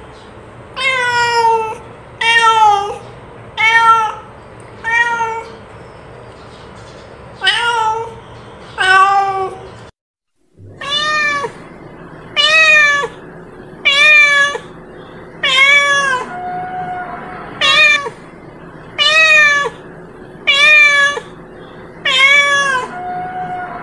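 Domestic cat meowing over and over, a loud call every second or so, each one dropping in pitch at the end. There is a brief silent break about ten seconds in, after which the meowing goes on.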